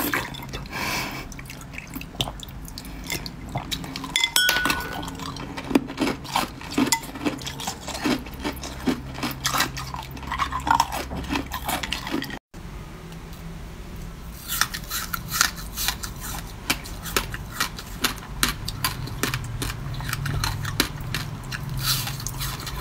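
Ice crackling, clinking against a glass bowl and dripping into melt water as a flavoured ice block is handled. After a sudden break about halfway through, rapid crisp crunching of bitten fruit-flavoured ice.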